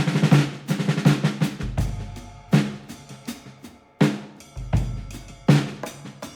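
Music with a drum-kit beat, snare and bass drum hits over a low bass line; the beat drops away briefly and comes back in about four seconds in.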